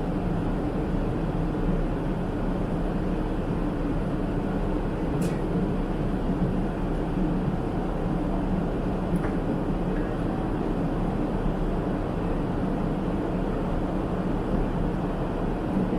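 Steady cabin noise inside a Boeing 777-300ER in flight: the even drone of airflow and GE90 engines with a low hum underneath, and a couple of faint ticks.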